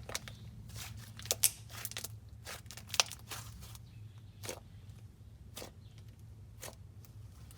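Slime being squished and played with by hand, giving irregular small sticky clicks and pops, a few of them sharper, over a steady low hum.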